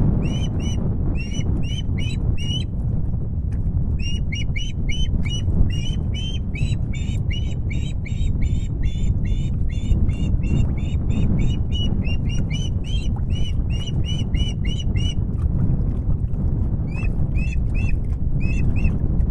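Osprey calling in a rapid series of short, high chirps, about four or five a second, pausing briefly twice, over a low rumble of wind on the microphone.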